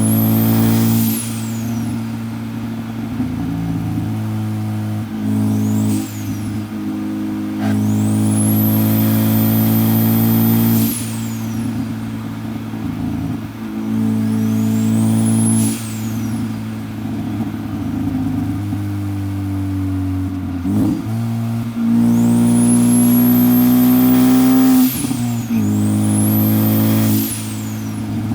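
Turbocharged Ford Focus ST with a Garrett G25-550 turbo being driven hard, heard from inside the car: the engine pulls loudly about five times, each pull carrying a high turbo whistle that climbs as the turbo spools up and falls away when the throttle is lifted, with quieter running between pulls.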